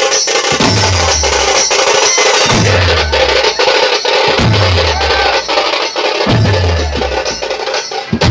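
Dhumal DJ remix music played loud: a deep bass hit falling in pitch about every two seconds, under fast, dense percussion and a sustained mid-range melody.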